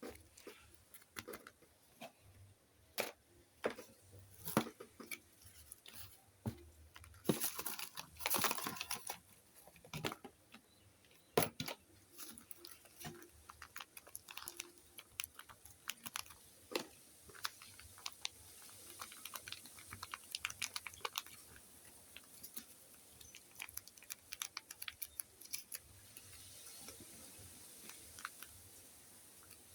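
Hands handling craft materials for a homemade squishy: scattered taps and clicks with crinkling, and a longer crinkly rustle about seven to nine seconds in.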